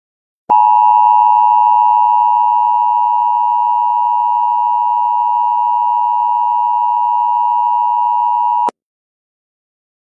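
Emergency Alert System attention signal: the steady two-tone alarm (853 and 960 Hz) sounding for about eight seconds, starting abruptly about half a second in and cutting off sharply near the end.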